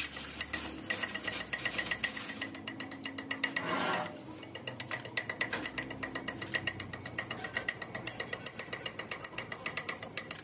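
Chipping hammer tapping rapidly on the fresh weld of a steel splined truck driveshaft held in a lathe: quick, even metal-on-metal strikes knocking off the slag. A brief rush of noise comes about four seconds in.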